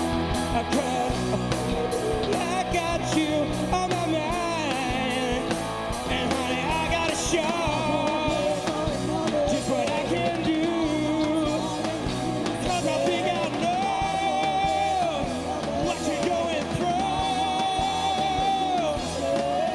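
A live rock band playing: drum kit keeping a steady beat under electric bass, guitars and keyboards, with a lead vocalist singing over it.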